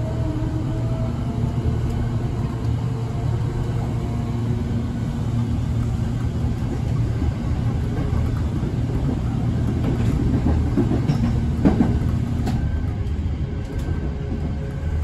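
Hankyu 8200 series electric train heard from inside the car while running. The whine of its Toshiba GTO-VVVF inverter and traction motors is heard in the first few seconds and then fades, leaving a steady rumble of wheels on rail with a few sharp clicks near the end.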